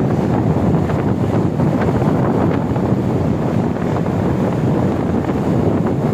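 Strong wind buffeting the microphone at sea, a steady, loud low rumble of wind noise.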